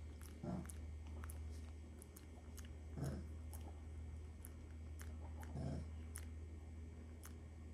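A monkey grooming a person's face and hair at close range: small, sharp clicks of fingers and lips picking, with three short soft low sounds spaced a few seconds apart, over a steady low hum.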